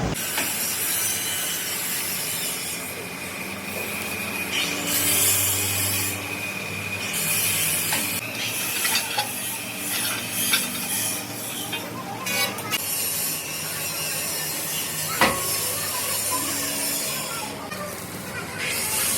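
Rasping, scraping workshop noise with a few scattered knocks and one sharp knock about fifteen seconds in.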